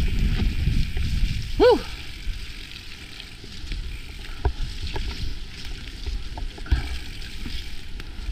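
Mountain bike rolling down a dirt singletrack: a low rumble from the tyres and bike, loudest in the first second or so, with scattered knocks and rattles over the bumps. One short squeal rises and falls about two seconds in.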